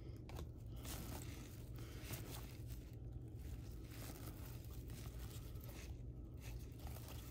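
Faint rustling and sliding of 1992 Upper Deck cardboard trading cards as a stack is flipped through by hand, card sliding over card in small irregular scrapes, over a steady low hum.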